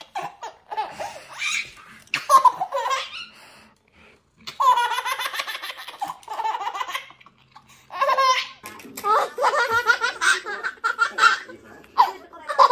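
A baby laughing in repeated bursts of giggles and belly laughs, with short pauses between.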